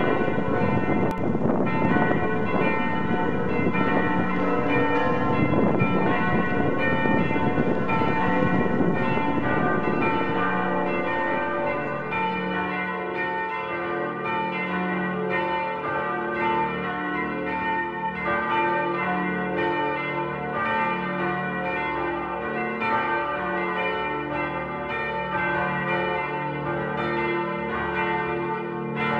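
Church bells of Saint-Sulpice ringing in a full peal, many bells sounding over one another. After about ten seconds the peal thins to fewer, steadier tones.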